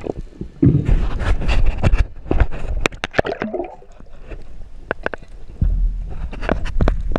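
Water splashing and gurgling with irregular sharp clicks and knocks, over a low rumble that swells in the first couple of seconds and again near the end.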